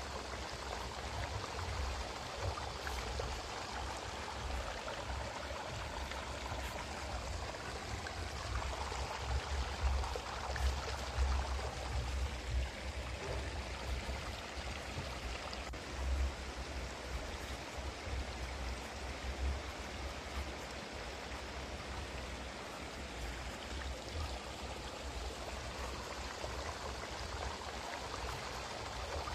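Steady background hiss with a low rumble beneath it, wavering slightly in level.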